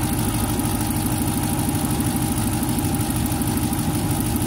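The MasterCraft X-2's MCX 350 V8 inboard engine idling steadily, warming up while it draws its cooling water from a bucket fed by garden hoses.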